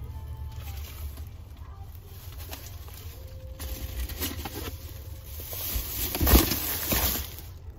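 Plastic grocery bags rustling and crinkling as they are shifted on a car seat, building up in the second half and loudest about six seconds in, over a low steady rumble.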